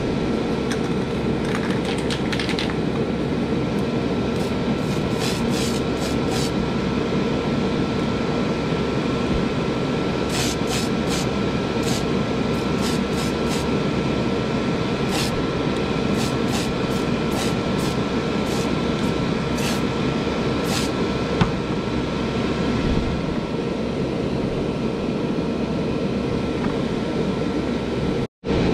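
Steady whirring of a fan or small motor with a faint constant tone, with short sharp clicks now and then; it breaks off for a moment near the end.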